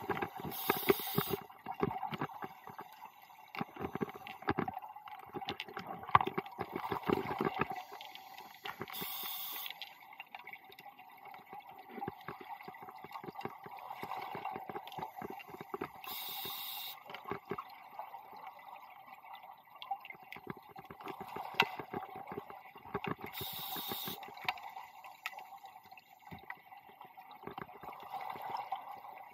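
Scuba diver breathing through a regulator underwater: a short hiss of inhaled air four times, about every seven seconds, each followed by a long run of bubbling from the exhaled air.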